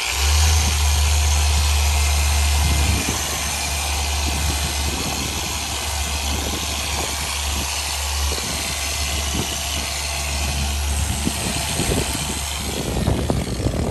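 Electric machine polisher running steadily on the car's paint with a yellow pad and fine polish, the finishing step after compounding: a strong low hum under a wide motor hiss, which drops a little in level about three seconds in.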